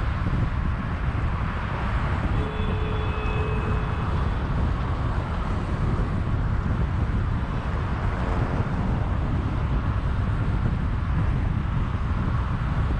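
Steady road and wind noise of a car driving along a busy multi-lane expressway at about 65 to 75 km/h, with a heavy low rumble. A faint, brief high tone comes through about two and a half seconds in.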